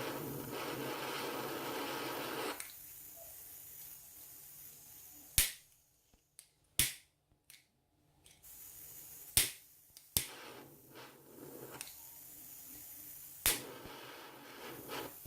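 Small butane blowtorch hissing, then cutting out about two and a half seconds in as its gas runs out. Five sharp clicks follow, a second or more apart: the torch's igniter being tried on an empty torch.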